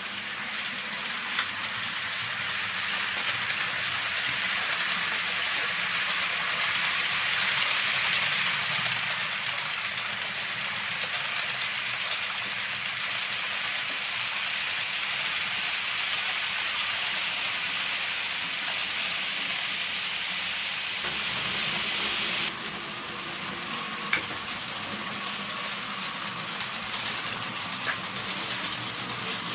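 Model train running on a layout's track: a steady rattling rush of small metal wheels on the rails that swells as the coaches pass close, then drops suddenly about three-quarters of the way through to a quieter rolling with a faint motor hum. A few sharp clicks stand out.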